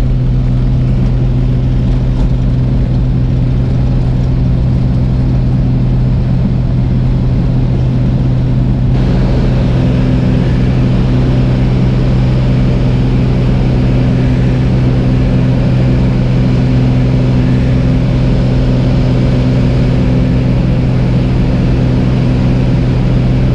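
Single-engine high-wing light aircraft's engine and propeller running at takeoff power, heard from inside the cabin, through the takeoff roll on grass and the climb-out: a loud, steady drone with a strong low hum. About nine seconds in, more rushing hiss joins it.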